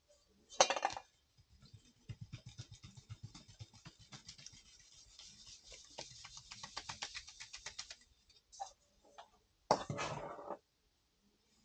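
Quick rhythmic scraping or rubbing strokes of hand work with a utensil and dough, several strokes a second for about six seconds. A brief louder clatter comes about half a second in and another near the end.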